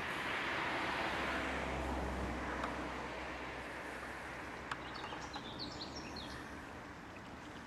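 Outdoor ambience: a rushing noise that swells over the first couple of seconds with a low rumble, then slowly fades. About five seconds in, a small bird chirps several times in quick succession.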